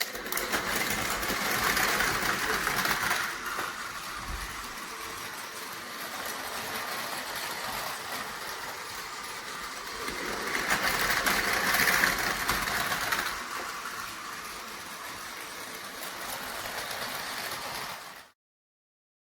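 Two battery-powered Tomy Plarail toy trains running on plastic track, their small motors and gears whirring and wheels rattling. The noise gets louder twice as the trains come close, then cuts off suddenly near the end.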